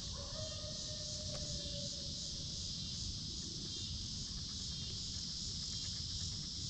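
Steady high-pitched chorus of insects, a continuous shrill trilling that pulses slightly.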